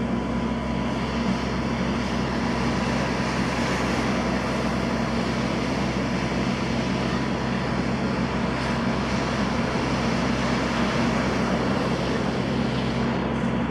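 Steady rush of wind and choppy surf, with a constant mechanical hum underneath.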